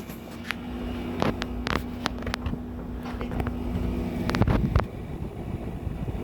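2018 General Electric 6,000 BTU wall air conditioner running with a steady hum, with several short knocks or clicks over it, the loudest about four and a half seconds in.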